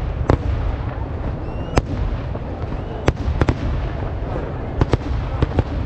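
Kerala temple fireworks (vedikkettu) going off: about nine sharp bangs at irregular intervals over a continuous low rumble of overlapping distant blasts.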